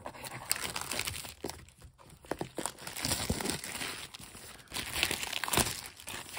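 Plastic shrink wrap on a cardboard box crinkling and crackling irregularly as fingers handle and pick at it to get it off.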